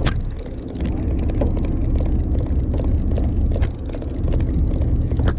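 A charter fishing boat's engine running steadily, a low rumble, with a few sharp clicks and knocks of fishing tackle handled close by.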